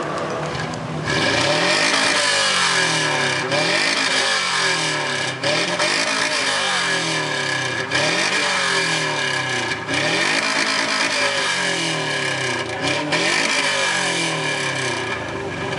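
Subaru Impreza's flat-four boxer engine revved hard through its exhaust, again and again, standing in place. The revs climb and drop about every two seconds, from about a second in until near the end.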